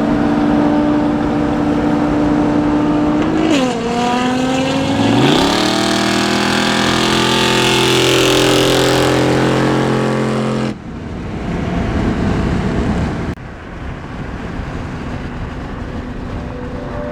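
Car engine running while driving, heard across several spliced clips: a steady drone, a dip and then a rise in pitch as it accelerates about four to five seconds in, then a held steady note that cuts off abruptly into road noise, with another abrupt cut near the end.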